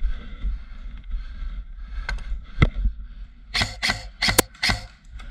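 A few sharp knocks, then a quick run of about five more a little over three and a half seconds in, over a steady low rumble.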